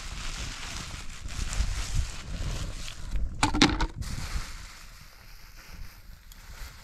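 Plastic sack rustling and crinkling as hands open it and dig inside, loudest in a short run of crackles about three and a half seconds in. A low rumble of wind on the microphone runs underneath.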